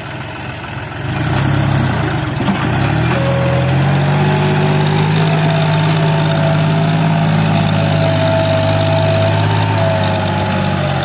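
John Deere tractor's diesel engine working under load as it pulls a trolley full of mud. The engine note rises about a second in and then holds steady, with a thin whine over it.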